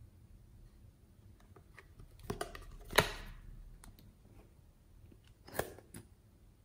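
Sharp plastic clicks from a squeeze bottle of children's shampoo being opened and handled, the loudest one about three seconds in, then a few more clicks near the end as the bottle is squeezed over the slime.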